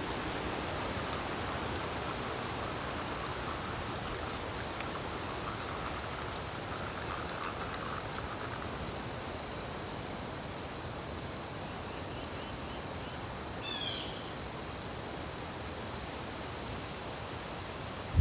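Steady rushing of a high-running creek, with a steady high insect drone over it. A short high chirp comes about three-quarters of the way through.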